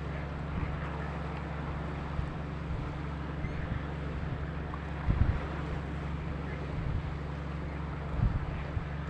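Boat engine running with a steady low drone, under wind buffeting the microphone, with brief louder gusts about five and eight seconds in.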